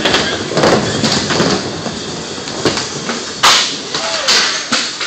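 Skateboard wheels rolling on a wooden ramp surface, broken by several sharp clacks and slaps of the board, the loudest about three and a half seconds in.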